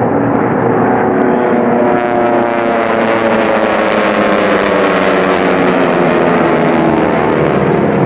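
A field of North American AT-6 Texan racers flying close by at racing power, their Pratt & Whitney R-1340 nine-cylinder radial engines making a loud, dense drone. From about two seconds in, the pitch slowly falls as the planes pass.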